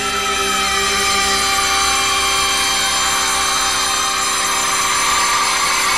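A loud, sustained siren-like electronic tone made of many steady pitches, one of them sliding slowly downward.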